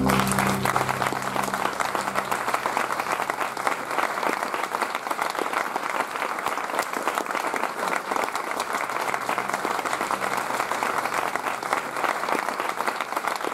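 Audience applauding steadily, while the last held notes of the music fade out in the first two seconds.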